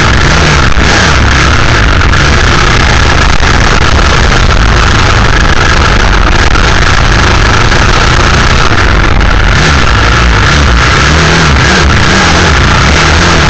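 Vehicle engine running hard under load, loud and distorted on the camera's microphone, with the pitch wavering as the throttle changes near the end.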